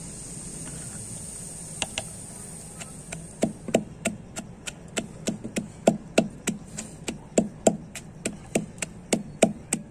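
Long wooden pestle pounding green chillies, garlic and ginger in a wooden mortar: two knocks about two seconds in, then steady strikes about three a second from about three seconds in.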